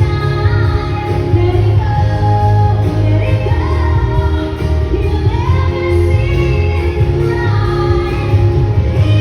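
A song playing: a high sung vocal melody over a heavy, steady bass.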